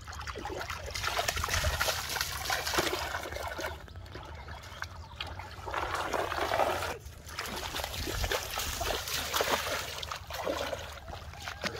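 Shallow river water splashing and sloshing as a wader pushes a plastic basin through it and grabs at fish with bare hands, in several bouts with short quieter gaps between.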